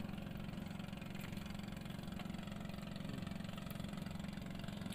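Small engine of a motorized outrigger boat (bangka) running steadily at idle, with a low, even, fast-pulsing drone.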